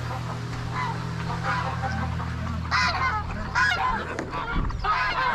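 Geese honking: a few calls from about a second and a half in, becoming louder and more frequent near the end, over a steady low hum.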